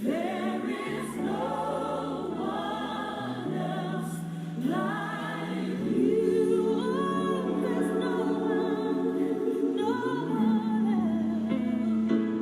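Gospel worship song: a choir singing long held notes with vibrato over a sustained bass line.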